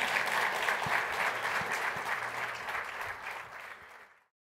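Audience applauding at the end of a talk, many hands clapping together; it fades slightly and then cuts off suddenly a little after four seconds in.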